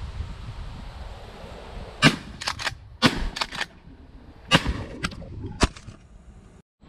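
Three shotgun shots fired in quick succession, about a second and a second and a half apart, each followed by a couple of quieter cracks. A sharp knock comes near the end as the head-mounted camera falls off.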